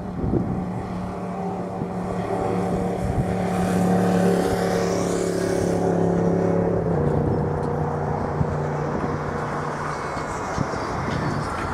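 A motor vehicle's engine running with a steady hum that steps down in pitch about seven seconds in, as of a vehicle going by.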